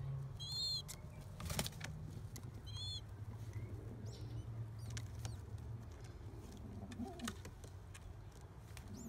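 Rock pigeons in a nest box: a low, drawn-out hooting coo with a brief low call near the end, two short high squeaks about half a second and three seconds in, and a sharp tap about a second and a half in among faint rustling of nest material.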